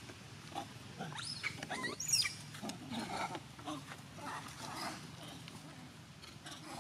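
Long-tailed macaques calling: high, rising shrieks a second or so in, followed by a run of short calls.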